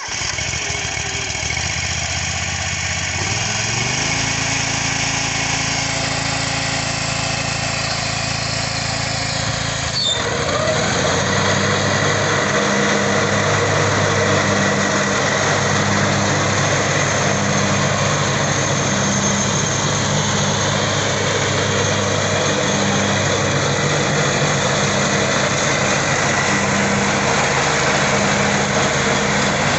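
Scag Turf Tiger zero-turn mower's 27 hp Kawasaki engine running steadily. The engine note steps up about four seconds in. About ten seconds in there is a click, and the sound turns louder and fuller with a low, pulsing drone.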